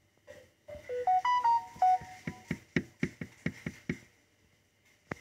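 A small electronic gadget plays a short tune of stepping beeps, set off by a puppy's nose. It then gives a run of about eight sharp clicks, roughly four a second, with one more click near the end.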